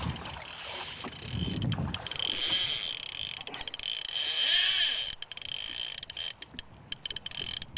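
Fly reel's ratchet drag buzzing shrilly as a hooked Atlantic salmon pulls line off against a drag set to maximum. It runs in a long burst, then breaks into short stuttering spurts for the last few seconds.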